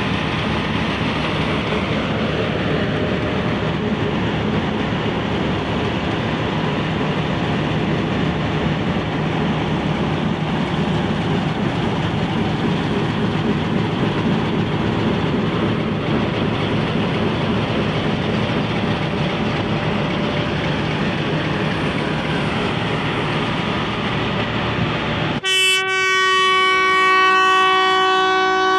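Diesel-electric locomotive engine running steadily at close range. Near the end its horn sounds one long, loud blast.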